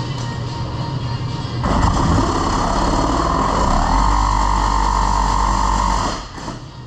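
Cordless power tool motor running for about four seconds, its whine rising in pitch partway through and then holding steady before it stops, over background music.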